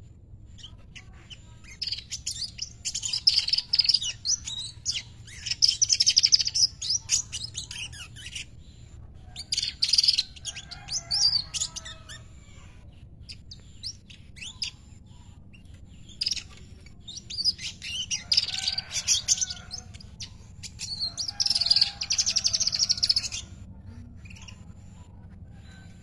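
Weaver bird (manyar) singing loudly in three long bouts of rapid, buzzy chattering song, each several seconds long, with short pauses between.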